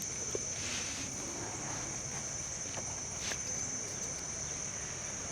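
Insects droning: one steady, high-pitched, unbroken tone, with a few faint clicks over it.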